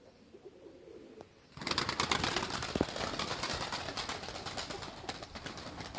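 Pigeons cooing, with a busy clatter of many small clicks and rustles that starts about one and a half seconds in.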